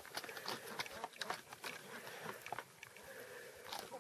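Pot-bellied pig munching and crunching feed pellets: a quick, irregular run of faint crunches and clicks.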